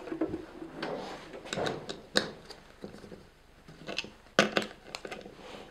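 Scattered metal clicks and light knocks from a small socket wrench on the hub nut of an electric radiator fan, along with the plastic fan being handled on a wooden workbench, as the 8 mm nut holding the fan blade is undone.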